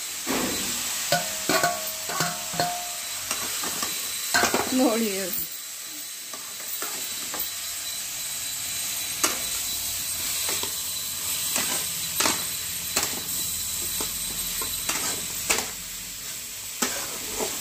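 Cauliflower, carrot, peas and tomato sizzling in a metal kadai over a gas flame, while a steel spatula stirs them and clicks and scrapes against the pan again and again.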